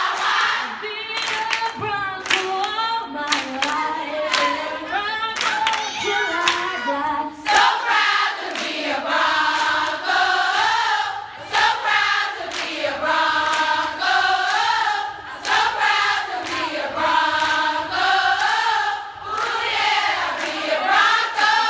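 A large crowd of students singing together as a group, with steady hand claps during the first seven seconds or so, then long held notes.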